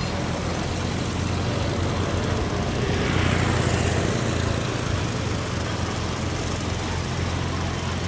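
Fishing boat engine running at low speed, a steady low drone, swelling louder for about a second around three seconds in.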